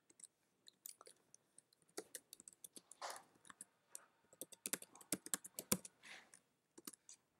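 Typing on a computer keyboard: irregular keystrokes that quicken into a rapid run about four to six seconds in.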